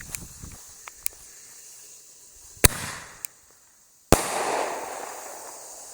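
Consumer small artillery shell going off. The lift charge fires with a sharp bang about two and a half seconds in, and the shell breaks overhead with a second loud bang about a second and a half later, its sound fading away over a second or so.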